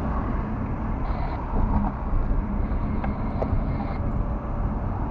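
Steady engine and tyre rumble heard from inside a moving car's cabin, with a low hum and a few faint clicks about a second and a half and three seconds in.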